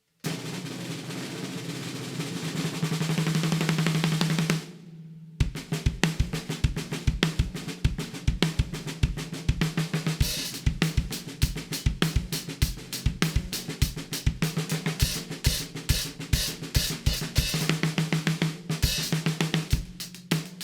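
CMC Maple x Bubinga 14x7-inch snare drum (maple and bubinga shell, Remo heads, hi-carbon snare wires) played in a roll that swells in loudness for about four seconds and stops. After a short lull it is played in a steady drum-kit groove, sharp snare strokes over bass drum beats.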